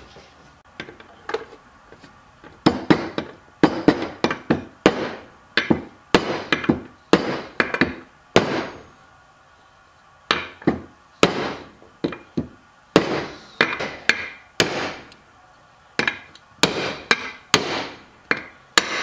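Hammer striking a socket used as a driver to seat a large bearing into the crankcase cover of an 18 hp Briggs & Stratton engine: a long series of sharp metallic strikes, each with a short ring, about one to two a second, with a pause of about a second and a half near the middle.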